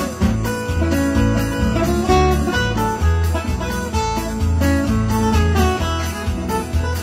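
Acoustic guitar played solo as an instrumental passage: a stream of plucked notes over repeating low bass notes.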